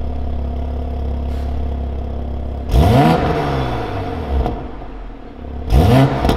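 2020 Toyota GR Supra's turbocharged 3.0-litre straight-six, breathing through a catless Fi Exhaust valved system, idling steadily and then revved twice. The first blip comes a little before the middle and the second near the end; each time the pitch climbs sharply and falls back to idle.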